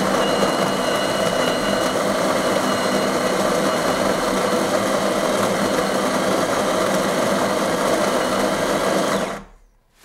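Delonghi Dinamica Plus superautomatic's built-in stainless steel burr grinder running steadily, grinding a double dose of beans for a doppio. It cuts off about nine seconds in when the roughly ten-second grind ends.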